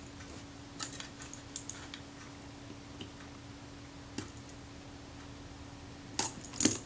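Scattered light clicks and taps from the mechanism of a disassembled Kodak Retina IIS camera being handled while the screw that times the shutter release against the film-advance release is adjusted. Two louder clicks come close together near the end.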